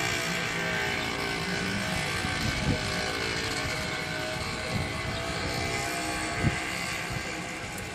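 Jet aircraft passing overhead: a steady engine drone with several held tones that drift slowly in pitch, with a few brief low thumps.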